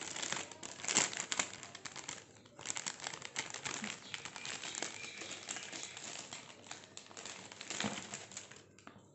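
Clear polythene wrapping crinkling as it is handled, with dense crackling and a brief lull about two and a half seconds in. It dies away near the end.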